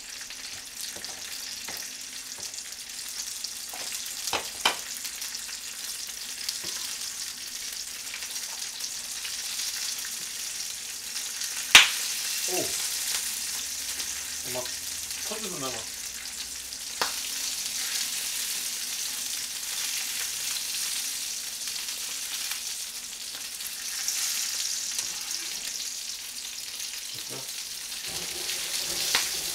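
A pot of broth boiling on a gas stove, a steady hiss, with a few scattered knocks of a kitchen knife on a plastic cutting board; the loudest is one sharp knock about twelve seconds in.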